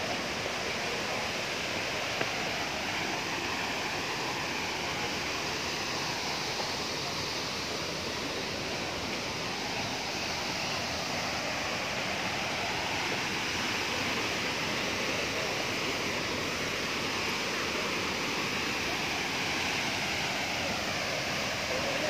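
Tall waterfall, water crashing steadily into its plunge pool as an even, unbroken rush.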